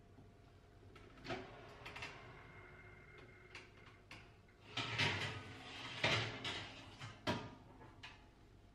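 Wall oven door opened with a couple of clicks, then a metal baking tray slid out along the oven's runners, scraping and clattering loudest around five to seven seconds in.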